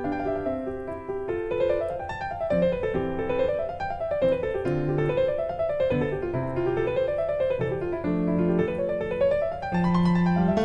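Background piano music: flowing runs of notes that rise and fall over a steady lower accompaniment.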